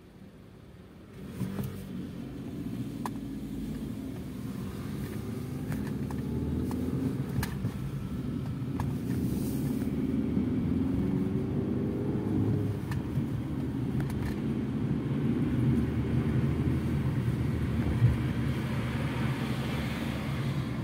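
Fiat Egea car pulling away about a second in, heard from inside the cabin. Its engine note rises as it accelerates, then it runs steadily with low road and tyre noise.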